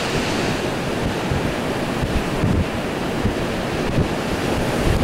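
Lake surf breaking and washing in, mixed with gusty wind buffeting the microphone.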